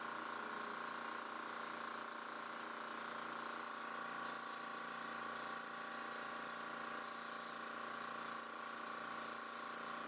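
Steady machine hum with an even hiss, an electric motor running without a break.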